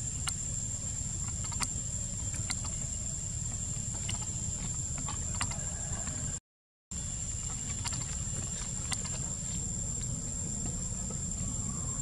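Steady high-pitched insect drone over a low rumble, with scattered light clicks and rustles. The sound cuts out for about half a second around six and a half seconds in.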